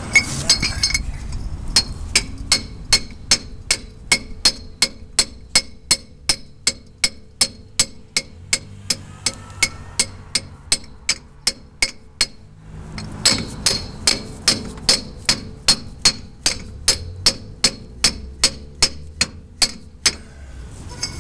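Hammer tapping on a pipe used as a driver to seat a heated 40-tooth reluctor ring onto a 700R4 transmission's tail shaft: even, sharp taps about three a second, with a short pause about halfway through, stopping near the end.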